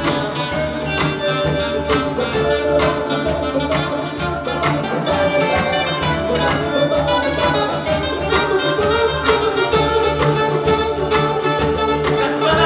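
An orchestra playing instrumental music: a held melody line over a steady beat and bass.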